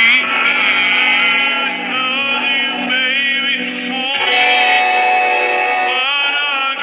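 A sustained, melismatic sung vocal passage with layered harmonies, part of the background song.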